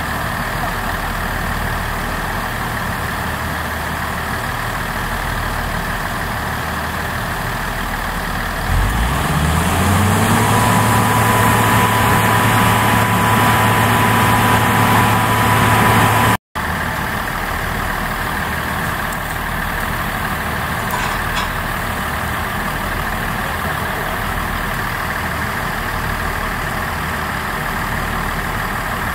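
Diesel railcar engine idling. About nine seconds in it revs up with a rising pitch and holds a louder, higher note with a thin whine for several seconds as the car takes power to close up for coupling. After a sudden break it is back at idle.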